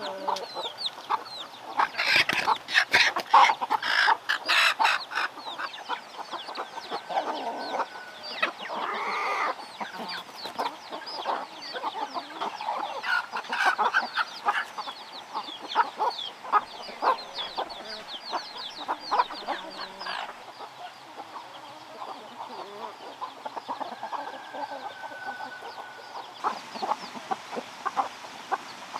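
A flock of chickens clucking while feeding, with many short high chick peeps running throughout. A burst of sharp clicks comes around two to five seconds in, and a longer drawn-out call about nine seconds in.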